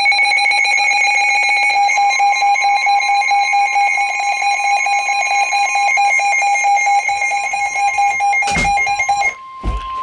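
NOAA weather alert radios sounding their alarms for a severe thunderstorm warning: a loud, steady high-pitched alarm tone, joined about two seconds in by a single steady lower tone, the 1050 Hz warning alarm tone of the weather broadcast. Near the end there are two knocks and the high alarm cuts off, leaving the 1050 Hz tone.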